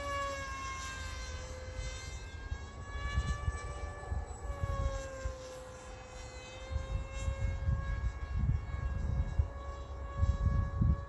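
Electric motor and propeller of a small FPV flying wing whining in flight, the pitch sliding slowly down and back up as it passes and changes throttle. Gusts of wind rumble on the microphone, heavier in the second half.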